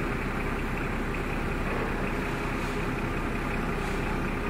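A forklift's engine running steadily at an even, low hum while the forklift lifts a heavy load.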